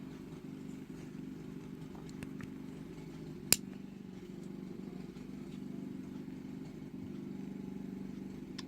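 A Leatherman Wave multi-tool's implement lock clicking as a tool is unlocked: one sharp metallic click about three and a half seconds in, with a few faint clicks about two seconds in and near the end. A steady low hum runs underneath.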